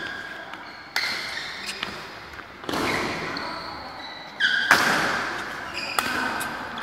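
Badminton rackets striking the shuttlecock in a doubles rally, about four hits roughly a second and a half apart, each one echoing in the large hall. Short high squeaks of court shoes come between the hits.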